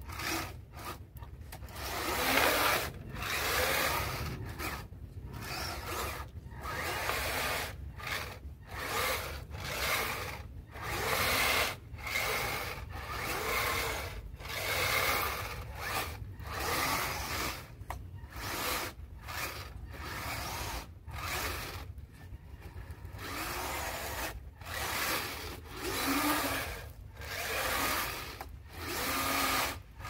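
Kyosho Blizzard radio-controlled snowcat driving in stop-start bursts, its electric motor and gearbox whining and its tracks grinding over wet pavement and slush, with brief pauses between throttle bursts.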